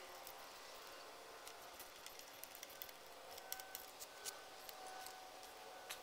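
Faint, scattered metal clicks and ticks of a socket wrench being fitted and turned on a bicycle crank bolt, irregular and a little louder around the middle, over a steady low hiss.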